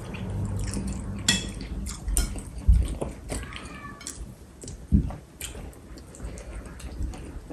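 Chopsticks clicking and scraping against plates and bowls during eating, with occasional chewing, scattered irregular clicks and two dull low thumps, about a third of the way in and again about two-thirds in.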